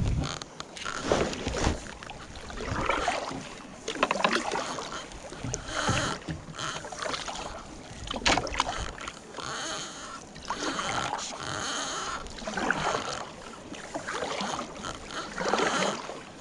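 Kayak paddle strokes: a double-bladed paddle dipping into calm water and pulling through, with splashes and drips coming in an uneven rhythm about every one to two seconds.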